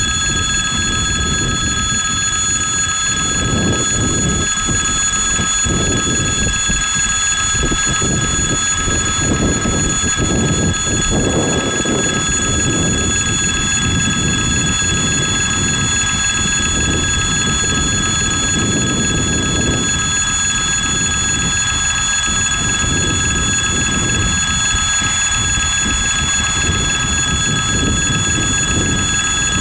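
RA2 diesel railcar running slowly toward a level crossing, its engine and wheels giving a low, uneven rumble that swells and eases every few seconds. Over it the crossing's warning bell rings steadily and without a break.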